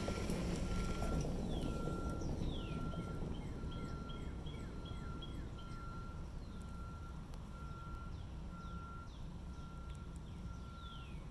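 Outdoor ambience: songbirds calling with descending whistled notes and a quick run of repeated chirps, over a low rumble. A short high beep repeats evenly about one and a half times a second throughout.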